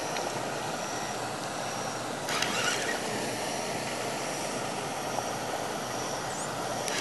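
Baitcasting reel being cranked against a heavy fish, over a steady rushing background, with a faint high whine that comes and goes about every half second and a brief louder rustle a little over two seconds in.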